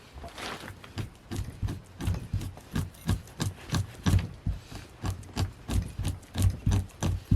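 Hand fleshing tool scraping a moose hide in quick repeated strokes, about three a second, taking off the membrane and flesh.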